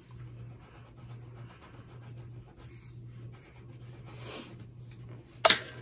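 Pencil drawing on paper, a faint scratching over a low steady hum, with one sharp click near the end.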